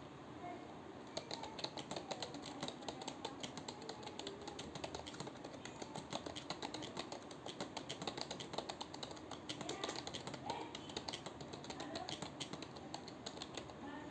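Computer keyboard being typed on continuously at a quick, steady pace, with many key clicks a second starting about a second in. This is touch-typing through a timed practice typing test.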